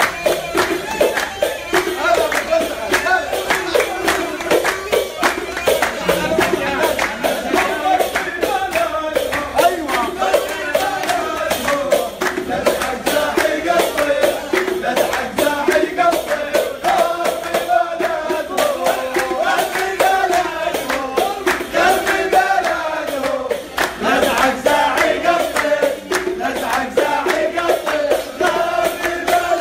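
A male singer and band performing a lively Arabic celebration song, with fast percussion and handclapping keeping a steady beat.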